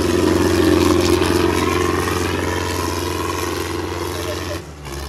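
Tractor diesel engines running flat out under heavy load in a tug-of-war pull, a loud steady engine note that drops off sharply near the end.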